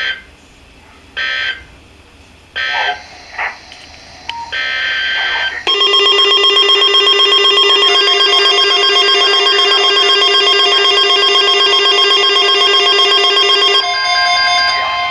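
Emergency Alert System data tones: three short screeching end-of-message bursts about a second apart, then a longer burst. From about six seconds in, a weather alert radio sounds a loud, rapidly pulsing electronic alarm for about eight seconds, signalling that a new alert is coming in, and then changes to a steady tone.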